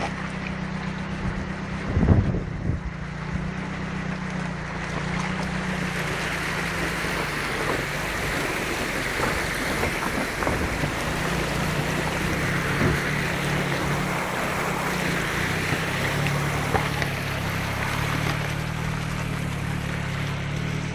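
Floodwater of a swollen stream rushing and churning over a low road ford, a steady noise that grows a little louder about five seconds in, with wind buffeting the microphone. A single thump about two seconds in.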